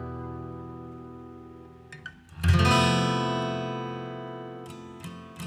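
Background music on acoustic guitar: a strummed chord rings out and fades, another is struck about two and a half seconds in and left to ring, then a few quicker strums come near the end.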